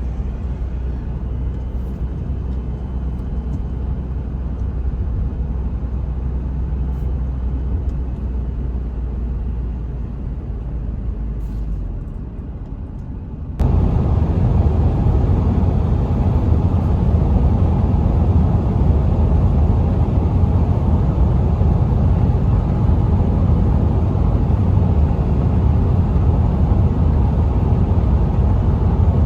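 A vehicle on the move: a steady low rumble of engine and road noise. About 13.5 s in it jumps abruptly to a louder, fuller rumble, which then holds steady.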